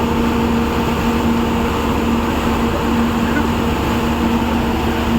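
A vehicle running steadily: a constant low rumble and droning hum with an even noise over it.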